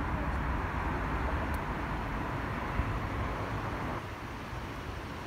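Steady rumble of passing road traffic, which eases off about four seconds in.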